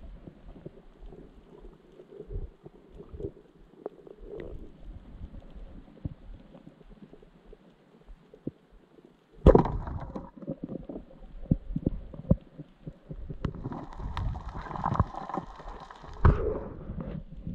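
Underwater sound on a reef dive: scattered faint clicks, then a sudden loud crack about halfway through as a speargun fires, followed by repeated knocking and rattling as the spear shaft and its shooting line are handled.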